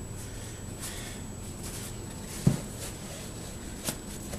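Quiet handling noise over a steady low hum: one dull thump about two and a half seconds in and a lighter click near the end.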